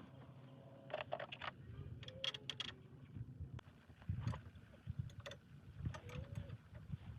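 Metal tools and parts clinking and knocking in short irregular clusters during work on a minivan's front wheel hub, over a low steady hum.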